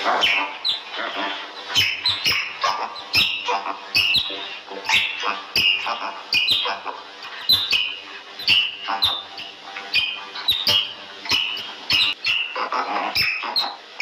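Small mammal's repeated high-pitched squeaking calls, about two a second, each dropping in pitch, mixed with sharp clicks.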